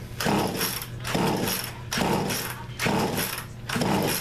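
A chainsaw engine on the bench being worked by hand, giving five short whirring, ratcheting strokes about one a second.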